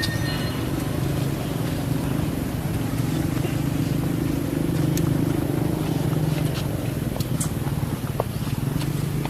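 Steady low motor hum, swelling slightly in the middle, with a few faint clicks.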